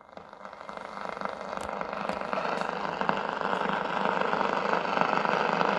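Static hiss from the loudspeaker of an Allocchio Bacchini AC14 valve radio receiver, swelling up out of silence over the first two seconds and then holding steady, with a few faint crackles.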